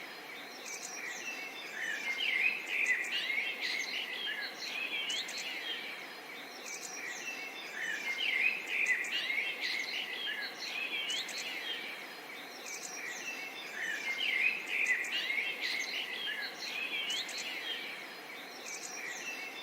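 Several songbirds chirping and singing together in a busy chorus of quick rising and falling notes, over a faint steady background hiss. The chirping swells and eases in waves every six seconds or so.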